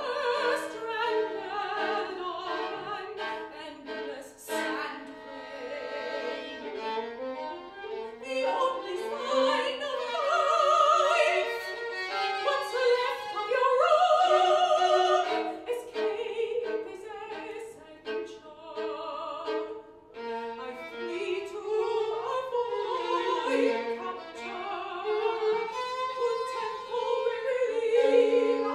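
A woman singing in a classical operatic style, with vibrato on held notes, over a solo violin.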